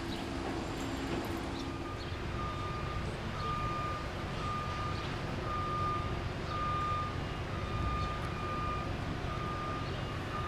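A construction vehicle's reversing alarm beeping at a steady, even pace, starting about two seconds in, over a low, steady rumble.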